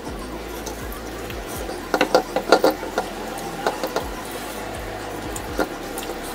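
Crispy fried chicken being eaten by hand: a quick run of crackling crunches about two seconds in, then a few single crunches, over a steady low hum.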